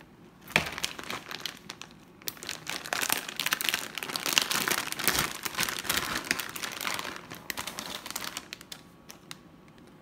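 Plastic bag of shredded cheddar cheese crinkling as hands open it and dig out handfuls, busiest in the middle and tailing off near the end. A sharp click comes about half a second in.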